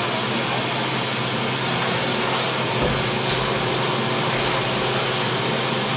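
Steady rushing air noise from a restroom ventilation fan, with a low hum under it and no change.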